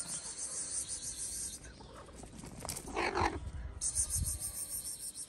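A stray cat meows once, about three seconds in, over a steady high chirring of insects that drops out around the call.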